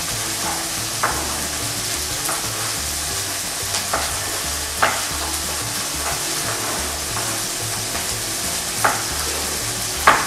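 Chicken breast pieces sizzling steadily in hot oil in a frying pan, with a handful of irregular sharp knocks from a knife dicing bell peppers on a wooden cutting board.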